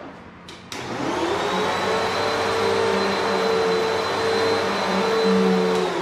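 A 2000s vacuum cleaner switched on with a click about a second in, its motor spinning up to a steady high whine with a hum underneath, then switched off just before the end and winding down.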